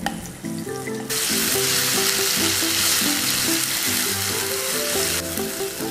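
Blended chili-shallot spice paste frying in hot oil in a pan. The sizzling starts suddenly about a second in and eases slightly near the end, over background music.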